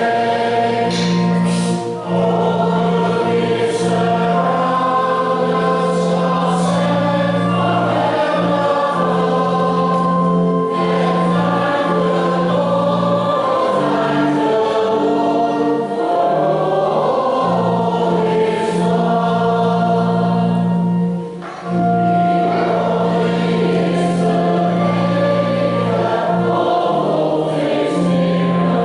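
A choir singing a hymn over steady low held notes, with two brief breaks between phrases.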